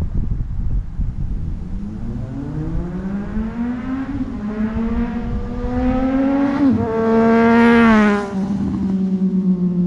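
Triumph Street Triple 765's three-cylinder engine through a Toce Performance slip-on exhaust with no baffle, accelerating hard with a rising note and a short dip at a gear change. It peaks loudest as the bike passes, then drops suddenly in pitch. The exhaust is really loud.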